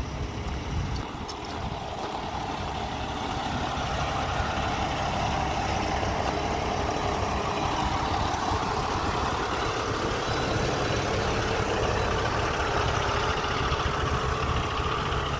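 Heavy-duty tow truck's diesel engine running steadily. It grows louder over the first few seconds, then holds.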